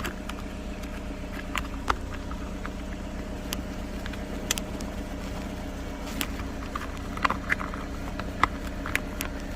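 A car engine idling steadily, heard from inside the cabin, with scattered sharp plastic clicks and taps as a suction-cup gauge mount is handled and pressed onto the dashboard.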